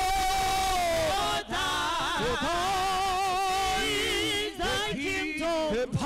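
Live gospel singing over a church PA: long held notes with vibrato, broken by a few short breaths.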